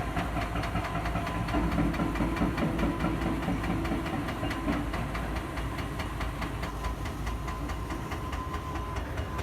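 A machine running steadily, with a deep rumble, a fast even ticking and a thin steady whine.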